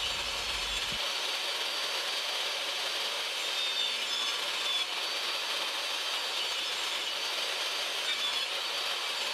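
Power tool running steadily as it cuts a dado groove into plywood.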